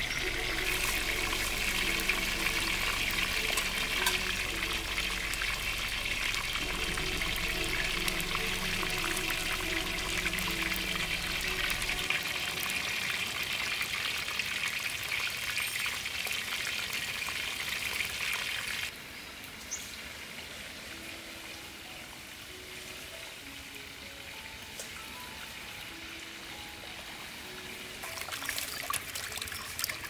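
Quail deep-frying in hot oil: a dense, steady sizzle full of crackles that cuts off suddenly about two-thirds of the way through. Soft background music follows, and near the end water splashes as vegetables are washed by hand in a metal basin.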